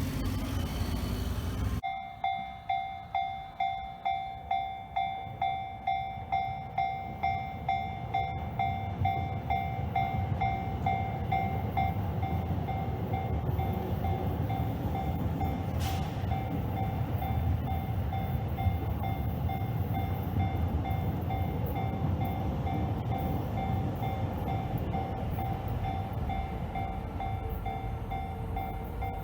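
Japanese level-crossing warning bell ringing, its electronic clang starting suddenly about two seconds in and repeating about twice a second, each strike fading. Underneath runs the low rumble of a Yamanote Line train on the tracks.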